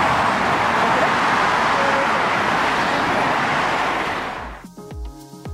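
Steady road traffic noise from a busy street. About four and a half seconds in it gives way to music with a regular beat.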